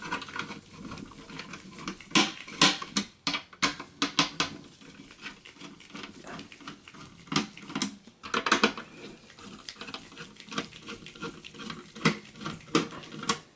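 Irregular small clicks and metallic taps of a Torx T15 screwdriver turning the screws of a mini PC's CPU heatsink, with handling noise against the metal cooler and a short scratchy rustle about two-thirds of the way through.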